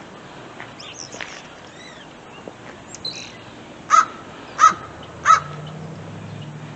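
American crows cawing: three loud caws in quick succession, about two-thirds of a second apart, with a few fainter, higher calls before them.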